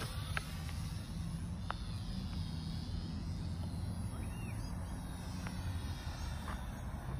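Electric motor and propeller of a Volantex Trainstar Mini RC plane flying overhead: a faint high whine that rises and falls in pitch as it passes. A low rumble of wind on the phone's microphone is louder than the plane.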